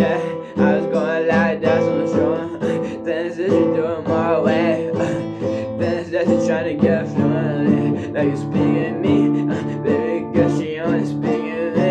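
Acoustic guitar strummed steadily, playing the accompaniment to a song.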